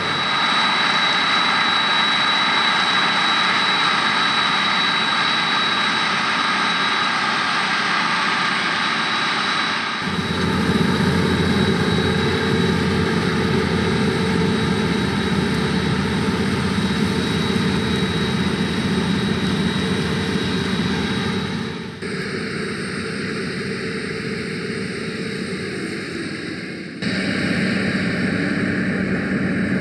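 Claas Lexion 570 TerraTrac combine harvester running under load, a steady machinery din with a high whine. The sound changes abruptly three times, at cuts between shots.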